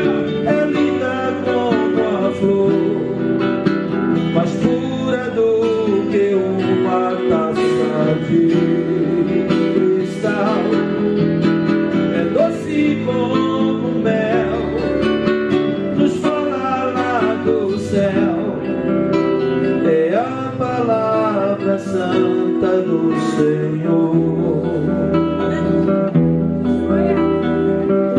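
A man singing to his own acoustic guitar accompaniment, the guitar played steadily throughout.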